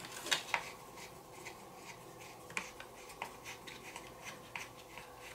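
Scattered faint clicks and light taps from a hex driver turning out a screw and from hands handling the plastic side guard of a 1/8-scale RC buggy chassis.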